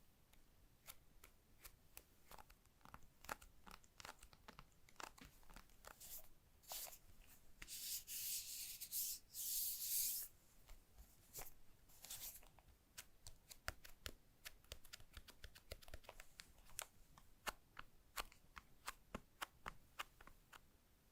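Hands handling packaging with scattered light taps and clicks, and two short stretches of tearing or peeling of plastic film about eight to ten seconds in.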